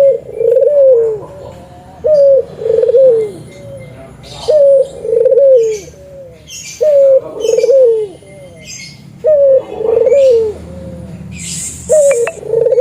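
Spotted dove (tekukur) cooing its song over and over: six phrases about two seconds apart. Each phrase is a short opening note, then a rolling coo, then a falling note. Fainter, higher chirps from other small birds come in between.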